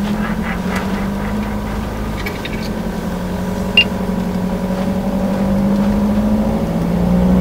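Car interior while driving: a steady engine hum with road rumble underneath, its pitch rising slightly near the end. A single short, high electronic beep sounds about four seconds in.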